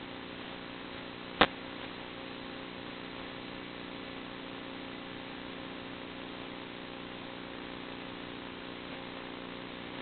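The electric motor and propeller of a fixed-wing FPV model plane, buzzing steadily under a constant hiss as heard through the plane's onboard camera audio. One sharp click comes about a second and a half in.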